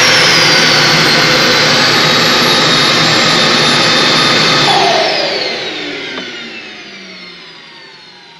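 Simjet 3000 model jet turbine spooling down after shutdown: a loud whine and rush of air that holds for about five seconds, then falls in pitch and fades away as the rotor slows, with the ECU in its slow-down phase.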